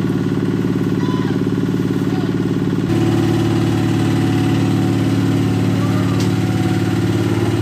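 An engine running steadily at a constant speed, its tone shifting slightly and getting a little louder about three seconds in.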